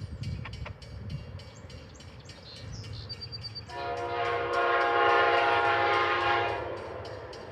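Amtrak GE P42DC locomotive's air horn sounding one long chord of several tones for about three seconds, starting near the middle, over the low rumble of the oncoming train.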